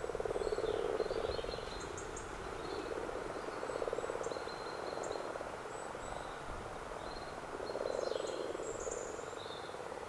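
A chorus of common frogs croaking: a low, rapidly pulsing churr that swells and fades in bouts, loudest in the first second and again about eight seconds in.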